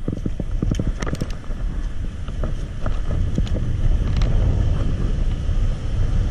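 Wind buffeting the microphone over the wash of surf on the beach, with a few quick knocks and taps of handling in the first second or so.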